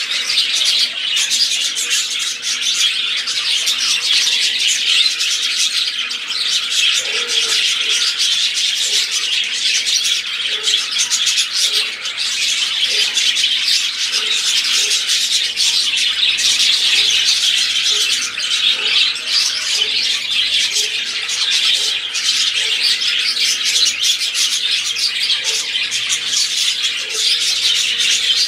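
A flock of budgerigars chattering and warbling without a break: a dense, steady, high twittering of many birds at once.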